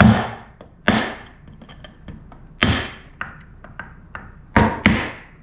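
About five sharp taps of a tool striking the plastic weatherhead, knocking out its conduit knockouts. The strikes come at uneven intervals, the last two in quick succession near the end.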